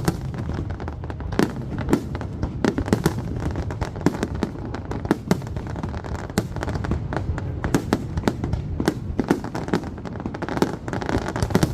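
Aerial fireworks bursting, a rapid irregular string of sharp cracks and bangs, several a second, over a continuous low rumble of echoing booms.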